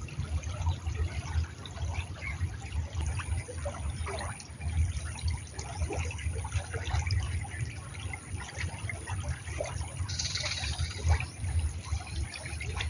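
Shallow stream trickling over stones, a continuous watery babble with an uneven low rumble underneath and a brief brighter hiss about ten seconds in.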